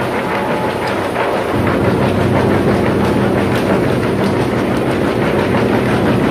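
Rotex industrial wood chipper running, with a steady rattling clatter throughout. A deeper machine hum grows stronger about one and a half seconds in.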